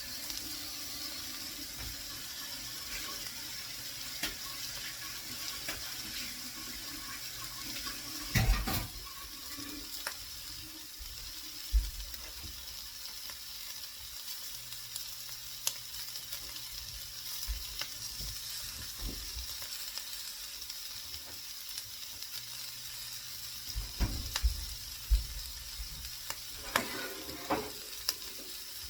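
Food sizzling steadily in a frying pan, with a few sharp knocks against the pan, several of them close together near the end.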